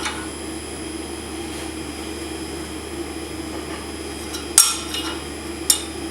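Three sharp hammer strikes on steel with a brief metallic ring, the loudest about four and a half seconds in and another about a second later, over a steady low hum.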